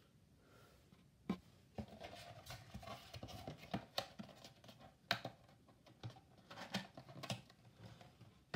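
Thin cardboard model-kit box being handled: cardboard flaps and lid rubbing and scraping, with a string of sharp taps and clicks starting about a second in.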